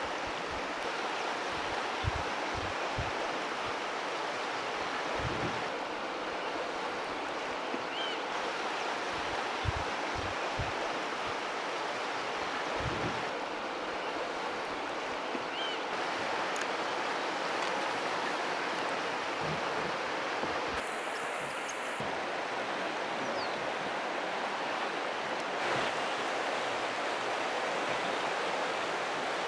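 Steady rushing of flowing river water, with occasional low wind buffets on the microphone.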